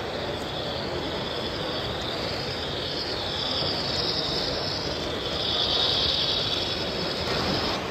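Model train running on an exhibition layout, with a high hiss that grows louder from about three seconds in and cuts off suddenly near the end, over the steady background noise of a busy exhibition hall.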